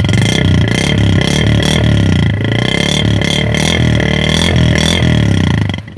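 A Honda 70 motorcycle's small single-cylinder four-stroke engine running just after a first-kick cold start, with a steady high-pitched tone alongside; the sound cuts off suddenly near the end.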